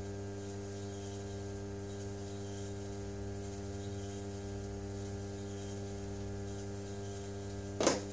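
Electric pottery wheel's motor humming steadily as the wheel turns. A single brief knock near the end.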